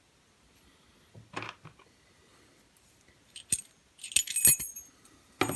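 Small metal lock-picking tools clinking and jangling as they are handled, with a few soft knocks first and a sharp knock near the end.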